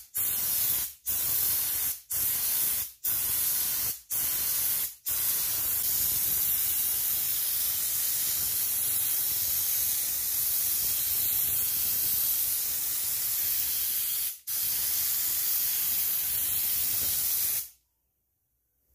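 Homemade compressed-air mini paint spray gun, with a no. 2 torch tip as its nozzle, spraying black paint. The hiss comes in short bursts about once a second at first, then runs as one long spray with a single brief break, and cuts off suddenly about a second before the end.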